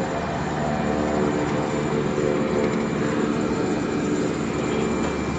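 Propeller airplane's engines running with a steady drone, heard from inside the cockpit as the plane rolls on the ground after landing.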